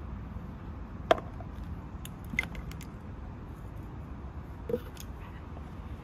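Light clicks and knocks of plastic ignition coil packs being handled, put down and picked up. The sharpest comes about a second in and a couple of softer ones follow, over a steady low rumble.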